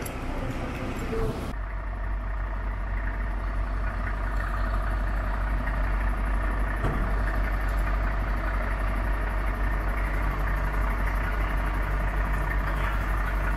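Fire engine idling steadily, after an abrupt cut about a second and a half in.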